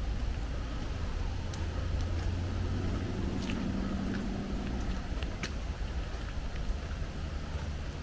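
Steady low outdoor rumble with a distant motor-vehicle hum that swells and fades away about midway, and a few faint, scattered high ticks.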